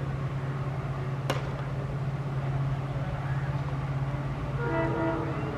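Diesel locomotive's EMD two-stroke engine running with a steady low drone. There is a single sharp click about a second in, and a short pitched sound near the end.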